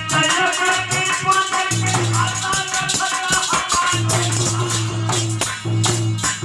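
Alha folk-ballad music: a melody line over a held low note, with steady percussion strikes throughout.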